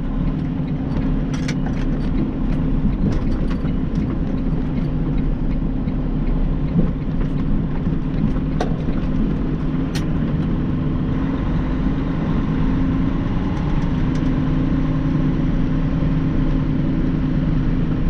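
Freightliner Cascadia semi-truck's diesel engine running steadily, heard as a constant low drone inside the cab, with a few faint clicks.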